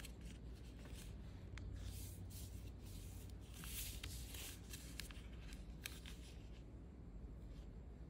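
A sheet of copy paper being handled and folded by hand: faint rustling with short crackles and swishes as it is turned over and creased, busiest about halfway through.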